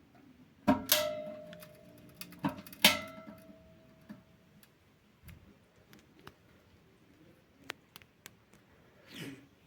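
Two pairs of sharp metallic knocks, each ringing on with a steady tone for a second or so, followed by faint scattered ticks and a brief swish near the end.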